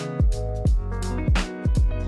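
Background music with a steady beat: deep kick drums that drop in pitch about twice a second, over held bass and plucked instrument notes.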